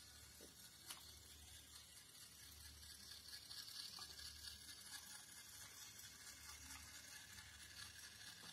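Near silence: the faint whir of small battery-powered toy train motors running on wooden track. It swells a little about three to four seconds in as a locomotive passes close.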